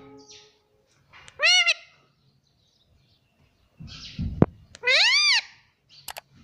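Pet green parrot giving two loud calls that rise and fall in pitch, one about a second and a half in and one about five seconds in, with a short low thump between them.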